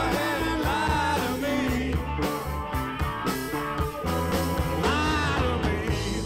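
Live blues-rock band playing: electric guitars over drums with a steady beat, with lead notes bending in pitch near the start and again about five seconds in.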